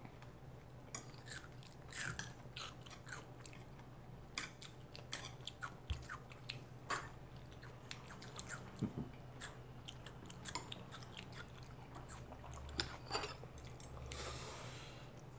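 A child chewing and smacking a mouthful of rice and side dishes close to a clip-on microphone, heard as many short, irregular wet clicks. A metal spoon and chopsticks tap against the rice bowl now and then.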